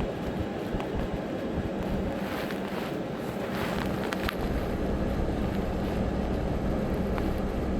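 A vehicle engine idling as a steady hum, with wind rumbling on the microphone that grows stronger about four seconds in, and a few faint clicks.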